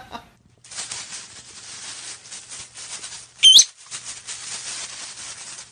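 A bird's single short, high whistled chirp about three and a half seconds in, wavering up and down in pitch, over a steady crackling rustle.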